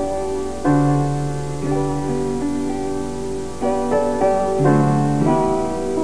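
Slow instrumental keyboard music with a piano-like sound: held chords that change about once a second, a new one coming in just under a second in and others later.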